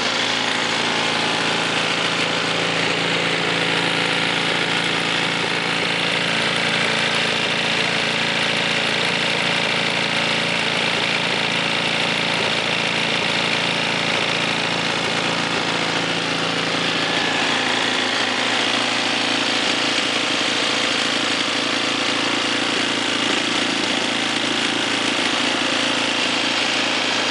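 The freshly rebuilt 250cc Briggs & Stratton single-cylinder engine of a Craftsman 22-inch Snow Shredder snowblower running steadily, its rebuilt carburetor holding an even speed.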